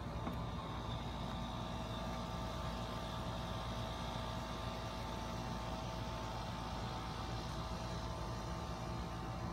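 Steady, unchanging machine hum with a low rumble and a constant drone, like a motor or engine running.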